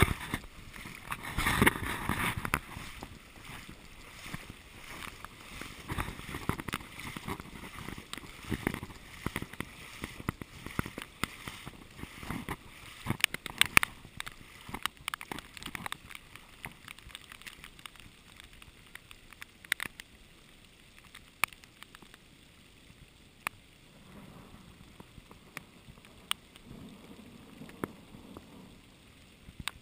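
Heavy rain on flooded pavement: a steady wash of water with scattered sharp ticks of drops striking close to the microphone. A louder rumble comes in the first few seconds, and the rain sound thins out in the second half.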